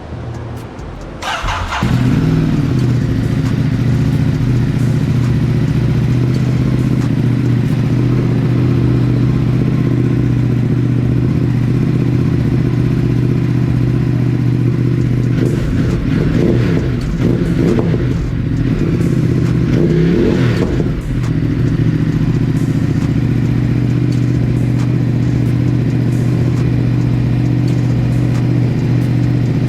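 Ducati Multistrada 950's Testastretta L-twin being started: a brief crank about a second in, the engine catching, then settling into a steady idle.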